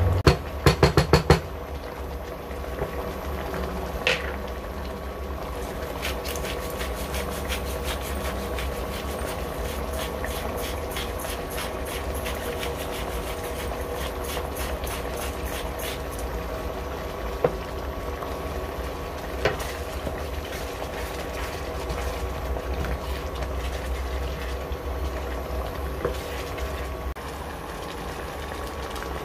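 Creamy sauce simmering and bubbling in a non-stick pan on an induction cooktop, over the cooktop's steady hum. A wooden spatula knocks sharply on the pan about five times near the start. In the middle comes a long run of light, even clicks as seasoning is shaken from a shaker over the pan.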